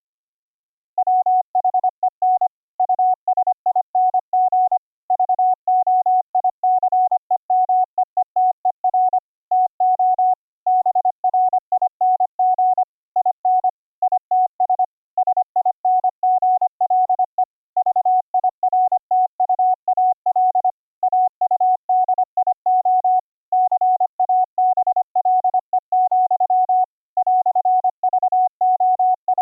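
Computer-generated Morse code (CW) tone from the YPLog CW keyboard program: a single steady pitch keyed on and off in fast dots and dashes, with short gaps between characters and words, starting about a second in.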